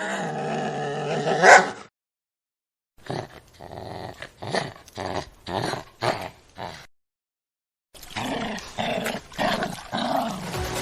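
A dog growling steadily for about two seconds, rising to a louder snarl just before it stops. After a short silent gap comes a run of about seven short, sharp barks, then after another gap more barking and growling.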